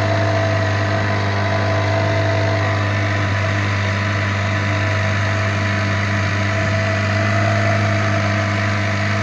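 Veterok-12 two-stroke outboard motor running at a steady speed, pushing a loaded inflatable boat upstream; a constant drone with no change in revs.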